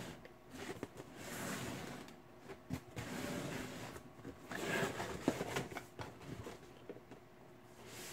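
Wooden crate being turned and slid around on a shelf by hand, in several stretches of scraping and rubbing with a few light knocks.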